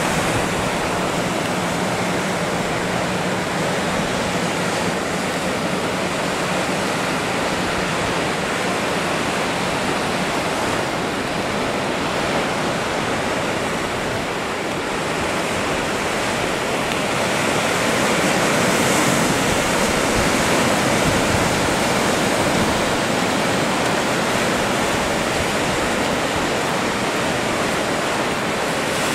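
Ocean surf breaking and washing ashore in a steady rushing roar, swelling a little past halfway.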